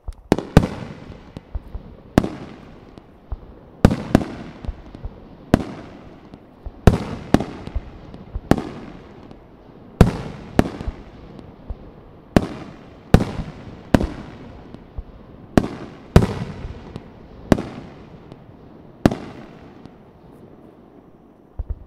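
Fireworks display: aerial shells bursting in a rapid series of sharp bangs, about one a second, each followed by a fading echoing rumble. The bangs thin out near the end.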